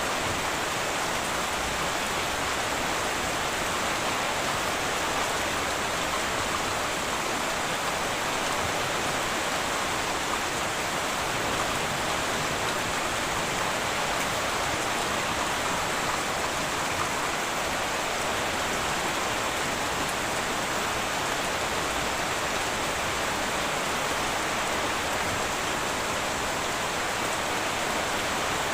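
Heavy rain falling steadily on a tin roof: a dense, even hiss with no thunder.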